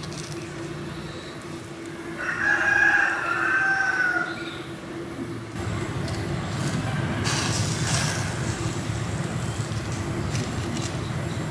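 A rooster crows once, about two seconds in, a call lasting about two seconds. A steady low noise follows from about halfway.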